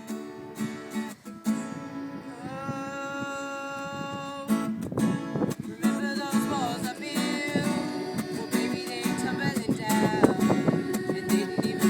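Acoustic guitar strumming, with singing that comes in about two and a half seconds in on held notes.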